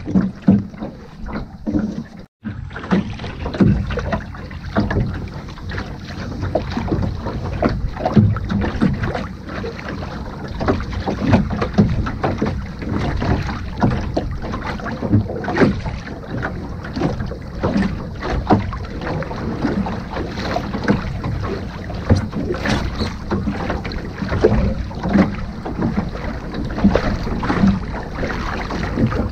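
Water splashing and gurgling along the hull of a small sailing dinghy under way, with wind buffeting the microphone. The sound drops out for an instant about two seconds in.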